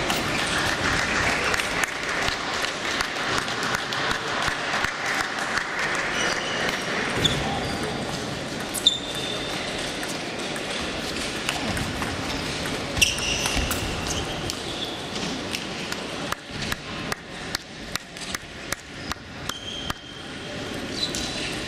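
Celluloid-type table tennis ball clicking off bats and table during rallies, with knocks from neighbouring tables echoing in a large hall and a few short high squeaks of shoes on the court floor. In the last few seconds comes an even run of ball bounces, about three a second.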